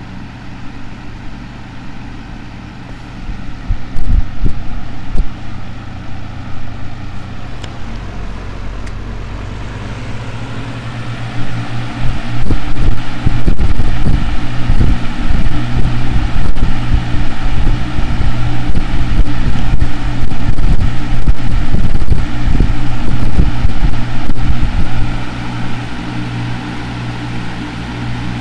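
Lasko 3733 box fan running: a steady motor hum under the rush of air. About twelve seconds in, the air noise gets much louder and buffets the microphone in gusts, then eases back near the end.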